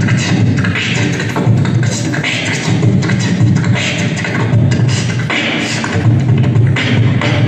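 Beatboxing into a handheld microphone: a continuous deep vocal bass line with hissing snare-like bursts about every second or so.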